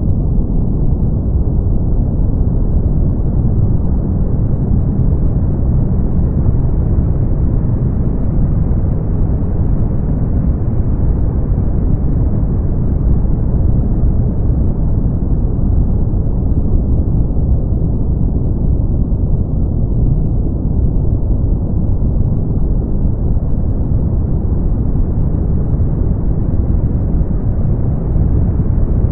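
Continuous brown noise: a steady, deep, rumbling hiss with most of its weight in the bass and little treble. Its brightness slowly swells and dulls again over about twenty seconds.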